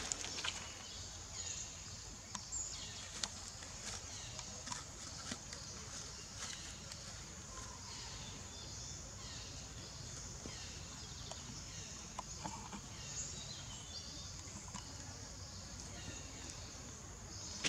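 Quiet outdoor ambience with small high chirps repeating about every second, each sliding down in pitch, over a low rumble, with scattered light clicks and rustles.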